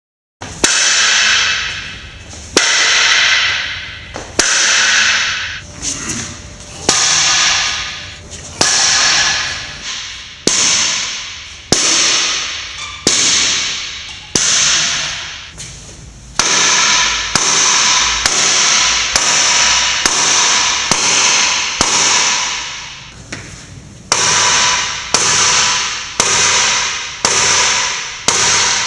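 Sledgehammer blows on a metal solar LED bollard light, about twenty in all: each a sharp clang followed by a ringing that fades. They come every one and a half to two seconds, speeding up to about one a second near the end.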